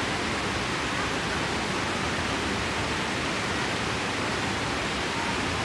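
Steady rush of water from a waterfall and the rocky river below it, an even noise with no breaks.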